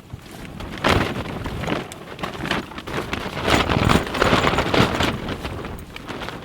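Thin tent fabric flapping and rattling in strong gusting wind. It comes in irregular surges, with a sharp gust about a second in and the loudest stretch around the middle.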